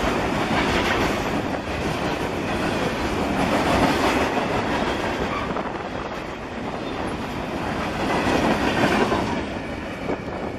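Freight train rolling past, its wheels clattering over the rail joints in a continuous rumble that eases slightly near the end.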